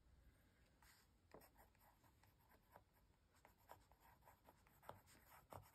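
Faint scratching of a pencil writing on sketchbook paper, in short, irregular strokes.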